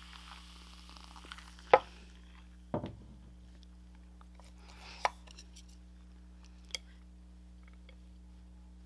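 Sipping a fizzy dark soda from a glass mug with a faint hiss, then the mug set down on the wooden table with a loud sharp knock and a duller knock just after. Scattered light clicks of wooden chopsticks follow as noodles are picked up.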